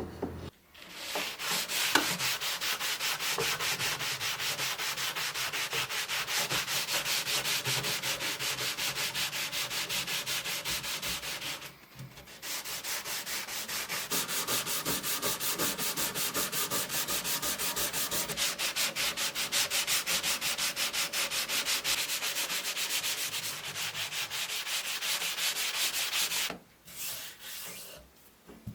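Hand sanding with quick, even back-and-forth strokes. It goes in two long runs with a short break about twelve seconds in, and stops shortly before the end.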